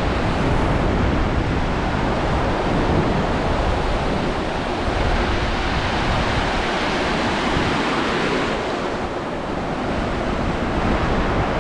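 Sea surf washing up and running over the sand at the shoreline, a steady loud rush of water.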